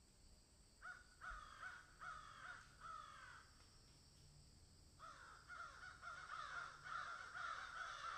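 Crows cawing faintly: four harsh caws spaced about half a second apart, then after a short pause a faster, continuous run of caws from about halfway through.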